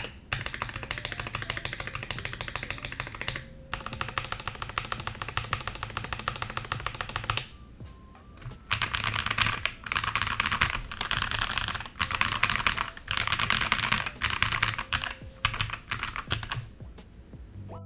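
Fast typing on a mechanical keyboard fitted with KTT Mallo light tactile switches, whose long-pole stems give a clacky bottom-out: runs of rapid keystrokes broken by short pauses.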